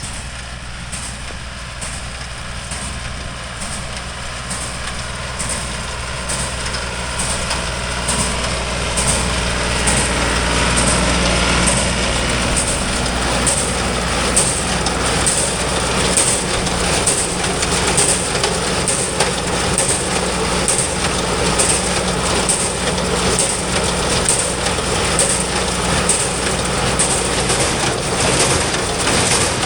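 A tractor's engine runs steadily while it pulls a small old square baler, whose mechanism makes a regular rhythmic clatter. It grows louder over the first ten seconds or so as the rig draws near, then stays level.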